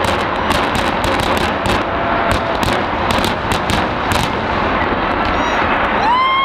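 Power plant implosion: a fast, irregular run of sharp bangs and cracks over a continuous rumble as the steel boiler structure and stacks come down. The bangs stop about four seconds in, leaving the rumble, and a long high whoop from a spectator starts near the end.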